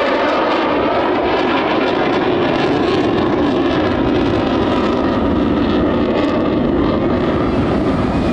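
Single Pratt & Whitney F135 afterburning turbofan of an F-35C Lightning II, in afterburner through a high-G turn: a loud, steady jet roar with occasional sharp crackles.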